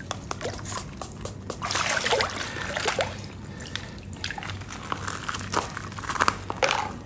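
Pond water sloshing and splashing irregularly in a fish net as a koi shifts about in the shallow water, with small drips and trickles.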